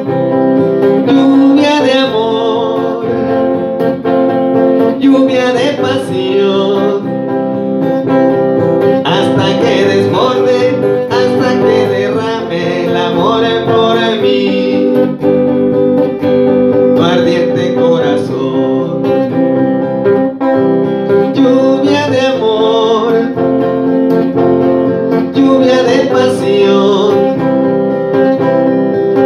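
Music: an electric guitar played over a steady backing of long held notes, in an instrumental stretch between the sung verses.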